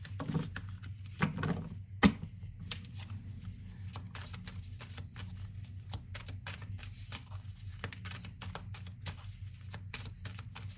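A deck of oracle cards being shuffled by hand: a run of quick flicking and slapping card sounds, with a few louder knocks in the first two seconds.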